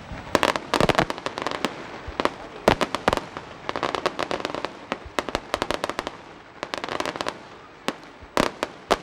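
Aerial fireworks going off in quick volleys: clusters of sharp bangs and crackling that come every second or so.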